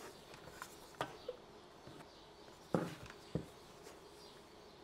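A few faint clicks and light knocks from a hand working the soldering station's front controls: one about a second in, and a louder pair about half a second apart near three seconds.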